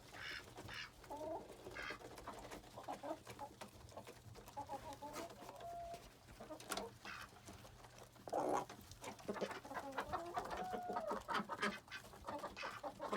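Laying hens clucking and calling, many short separate calls with a few longer, drawn-out ones.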